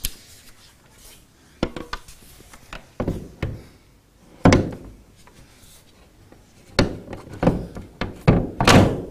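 Solar panel being set onto a travel trailer's roof: a series of irregular knocks and thunks as its frame bumps the roof and mounting brackets, with several close together near the end.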